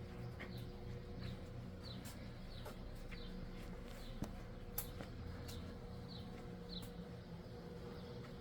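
Small birds chirping outdoors: short, high, falling chirps repeating about every half second. A low steady hum runs underneath, and two sharp clicks come about four and five seconds in.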